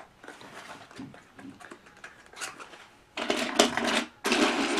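A cardboard toy-train box is handled quietly, then ripped open: two loud crackling rips of about a second each near the end.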